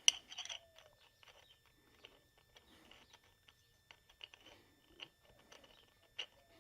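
Scattered small clicks and crackles of handling, with a cluster of sharper clicks at the start and faint irregular ticks after.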